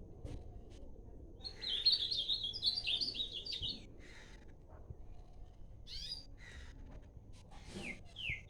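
Songbird singing: a fast, warbling phrase of high, choppy notes lasting about two seconds, then a short call and, near the end, a few quick notes sliding downward.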